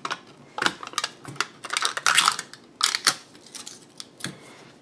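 Sharp plastic clicks and short crinkly crackles as the seal and lid of a spice container of Himalayan pink salt are broken open by hand, most of them in the first three seconds.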